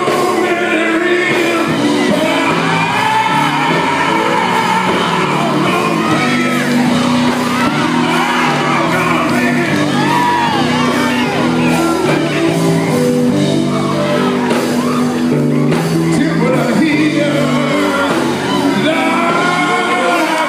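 Male gospel quartet singing live with a band, a lead voice shouting out lines over the group's singing and a steady bass line.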